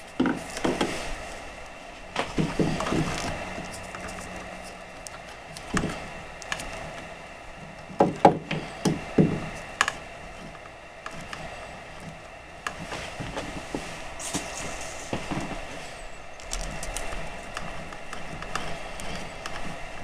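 Hand handling noise as plastic wire nuts are twisted onto the switch's wire leads and the house wires at an electrical box: scattered rustles, scrapes and small plastic clicks, with a quick cluster of sharper clicks about eight seconds in.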